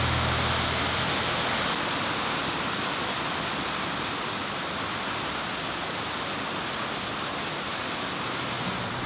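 Steady rushing of water: an even, unbroken hiss with no distinct splashes or strokes.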